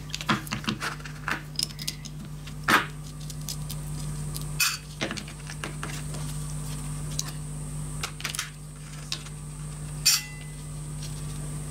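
Scattered light metallic clicks and clinks of small engine parts being handled as a Taipan Tyro model diesel engine is hand-dismantled: its propeller nut, washer and propeller coming off. A few louder knocks stand out among them.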